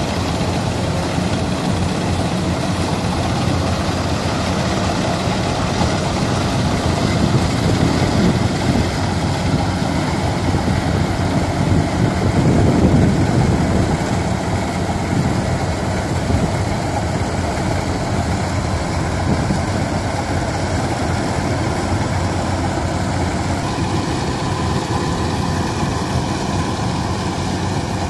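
Tracked rice combine harvester, the '95' model, running steadily as it works the paddy, its engine and threshing machinery making an even drone that swells slightly about twelve seconds in.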